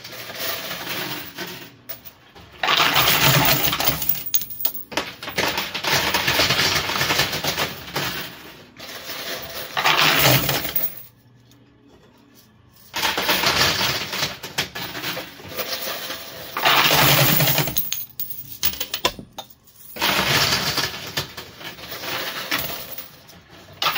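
Quarters clattering inside a coin pusher arcade machine: coins dropping onto the playfield and jostling against the piles in several runs of a few seconds each, with a short lull about eleven seconds in.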